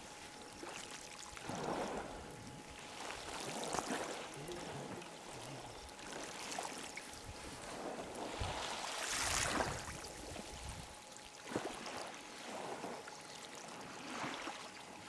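Lake water lapping and splashing, rising and falling in soft swells, loudest about nine seconds in.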